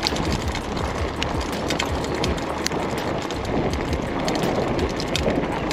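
Waltx Dune 1 fat-tyre bicycle rolling fast over a muddy gravel track: a steady rush of tyre noise with irregular clicks and knocks as the wheels hit stones and the bike rattles.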